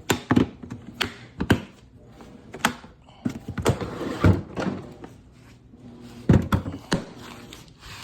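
Hard plastic Toughbuilt StackTech toolbox being handled: a series of sharp clicks and knocks from its latches and lids, with a rustling shuffle of its contents around the middle.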